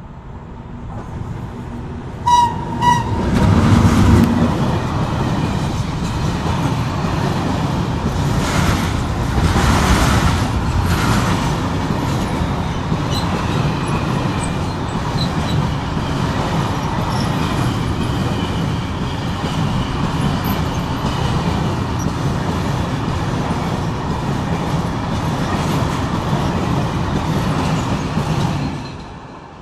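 Electric locomotive giving two short horn blasts about two seconds in, then passing close at the head of a freight train of open wagons. The wagons roll by with a steady clatter of wheels on rails, fading near the end.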